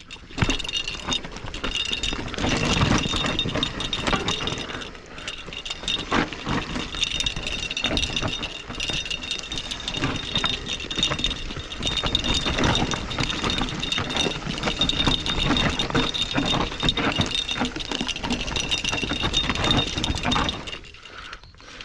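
A 2021 Specialized Stumpjumper EVO Comp mountain bike rattling and clattering over rough, rocky ground on a steep descent, with a thin high whine running through most of it.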